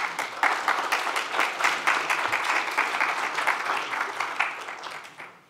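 Audience applauding at the end of a talk, many hands clapping densely, dying away near the end.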